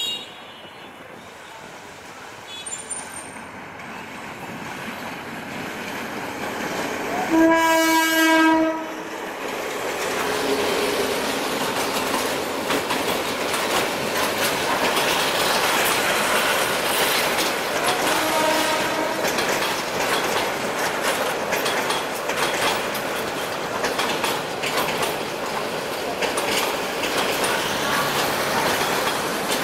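A Bangladesh Railway GT18LA-2 diesel-electric locomotive hauling a long metre-gauge passenger train approaches and passes. Its horn gives one loud blast of about a second and a half as it draws near. Then the coaches roll by with a steady clatter of wheels over the rail joints, and a shorter, fainter horn note sounds partway through.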